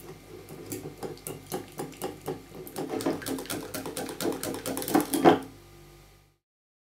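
Wire whisk beating egg yolks and condensed milk in a glass bowl, the wires clicking against the glass several times a second. The whisking stops a little after five seconds in.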